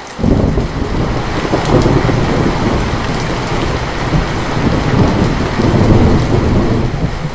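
Steady rain with thunder: a deep roll of thunder breaks in suddenly just after the start and rumbles on over the rain, easing briefly near the end.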